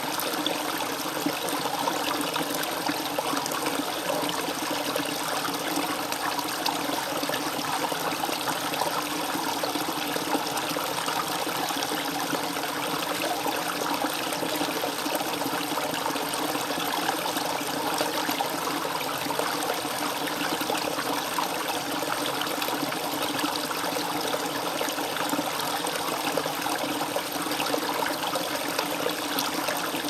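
Small mountain brook babbling and trickling over rocks, a steady, unbroken flow of water.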